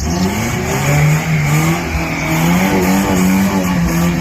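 An engine revving: its pitch rises in the first second, then holds steady under load.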